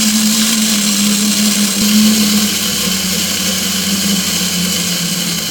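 Loud, steady whirring of a small electric motor, its low hum dropping slightly in pitch about three seconds in.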